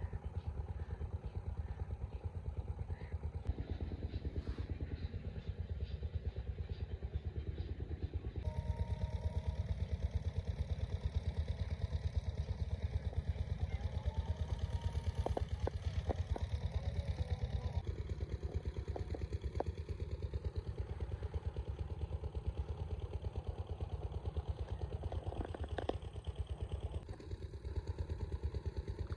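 Engine of an irrigation water pump running steadily with a low, even beat, a little louder from about eight seconds in.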